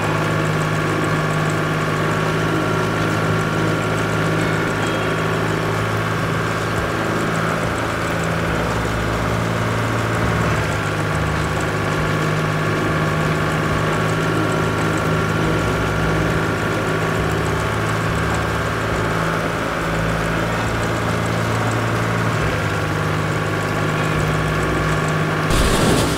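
Tractor engine running steadily at a constant low pitch. Near the end, a sudden rush of noise breaks in.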